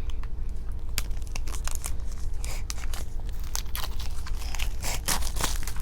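Wooden jigsaw puzzle pieces being handled and fitted, making a string of irregular clicks and knocks with some scraping.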